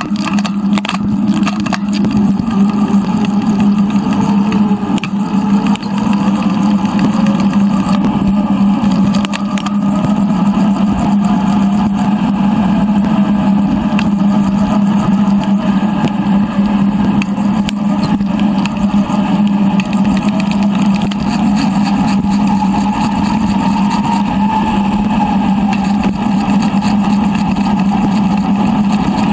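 Steady engine-like drone with slowly wavering higher tones: wind and tyre noise from a camera mounted on a moving bicycle, sped up threefold.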